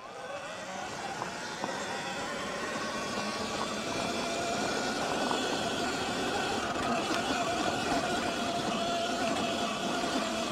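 Electric motor whine of a Sur Ron X electric dirt bike approaching at a steady speed, a steady high whine over a rushing noise that grows gradually louder.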